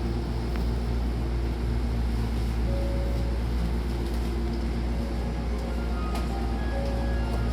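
Steady low hum inside a Hankyu Takarazuka Line train carriage, with a few short electronic tones and faint clicks over it.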